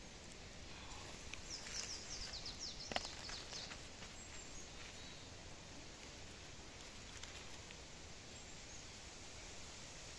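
Quiet forest background with a bird singing a short run of quick falling notes about two seconds in, and one sharp click about three seconds in.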